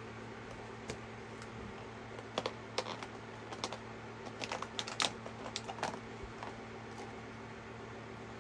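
Small irregular clicks and taps of acrylic paint tubes knocking against each other and the plastic tray as they are set back into their slots, over a steady low hum.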